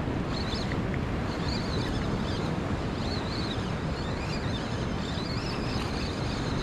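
Wind buffeting the microphone over the wash of sea surf, a steady noise. Faint, wavering high-pitched squeaks recur throughout.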